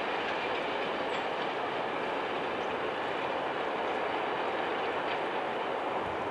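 Freight train wagons rolling along the track, a steady rumble of wheels on rails.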